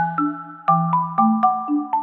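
Background music: a light melody of struck, ringing notes, a new note about every half second, over a soft bass line.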